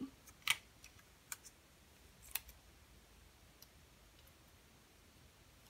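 A few light clicks and taps from paper craft pieces being handled on a desk: three sharp ones in the first two and a half seconds, then a couple of fainter ones.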